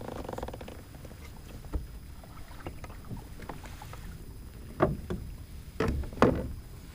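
Knocking and handling noise on a fishing kayak: a low rumble with scattered light clicks and a few louder knocks about five and six seconds in.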